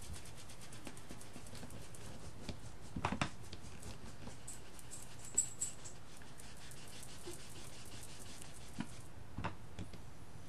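Makeup sponge dabbing and rubbing ink onto the edges of a white cardstock card front: a fast run of faint strokes, with a few louder taps now and then.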